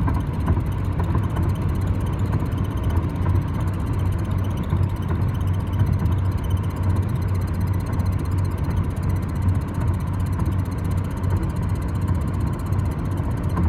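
A 2012 Dodge Avenger being driven: a steady low drone of engine and road noise, with a faint high squeak repeating over it.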